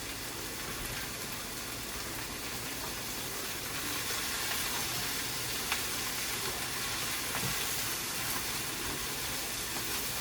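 Chicken and vegetables sizzling in hot oil in a pan: a steady hiss that grows slightly louder about four seconds in, with a few faint ticks.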